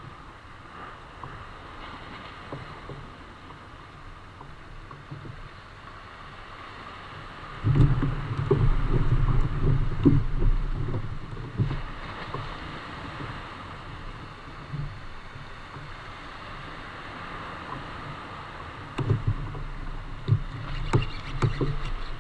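Steady water and wind noise around a small plastic kayak at sea. About eight seconds in there are a few seconds of louder low rumbling with knocks, and more low knocks come near the end.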